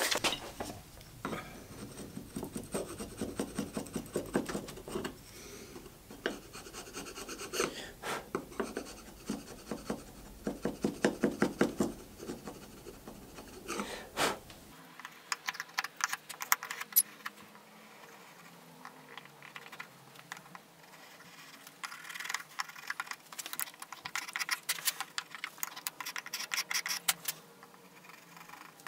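Sandpaper rubbed back and forth on the wooden body of an old fillister plane, in quick even strokes, for about the first half. Then quieter, scattered scratching on the wood in short clusters.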